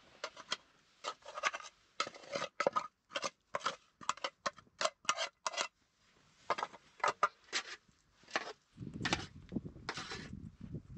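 A quick series of short scraping or rubbing strokes, about three a second, with a brief pause about six seconds in. A low rumble joins in near the end.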